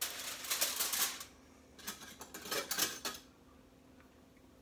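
A spoon scraping and clinking against a soup bowl in two bouts of quick clicks, the first about a second long and the second about a second and a half.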